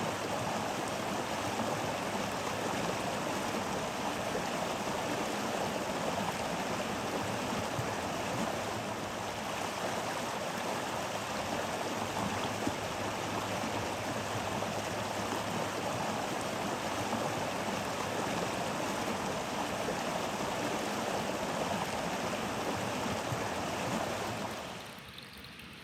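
Stream water running steadily with an even rushing and splashing. Near the end it drops sharply to a much quieter hiss.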